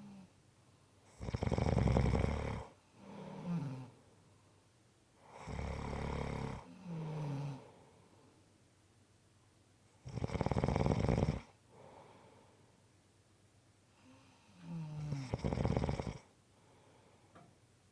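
A person snoring in deep sleep: four loud, rough snores about four to five seconds apart. Most are followed by a shorter, softer breath out whose pitch falls.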